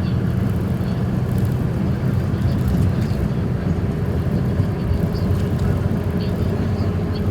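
A steady low rumble that holds an even level throughout, with faint short high-pitched chirps here and there.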